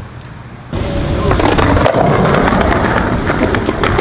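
Skateboard wheels rolling over street pavement: a loud, rough rumble that starts suddenly about a second in, with sharp clicks over cracks and joints in the pavement.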